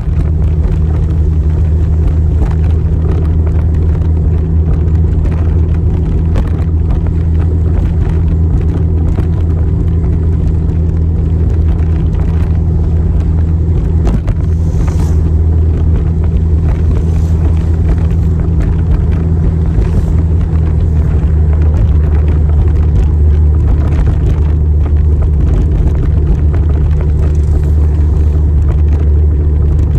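Motorcycle running steadily on the move: a loud, low, unbroken rumble.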